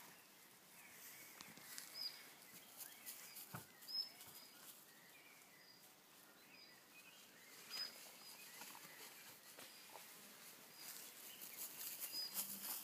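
Near silence: faint rustling in the grass, with a few faint, very short high-pitched peeps scattered through.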